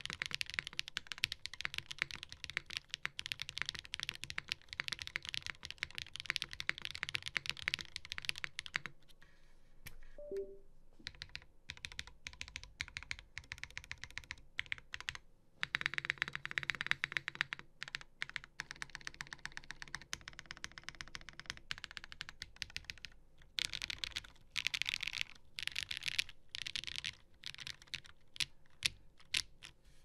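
Custom mechanical keyboard being typed on: a Geon Works F2-84 with an aluminium plate, lubed Zaku switches and GMK doubleshot ABS keycaps. Fast runs of keystrokes come at the start, in the middle and again past the two-thirds mark, with slower single key presses between and a short lull about nine seconds in.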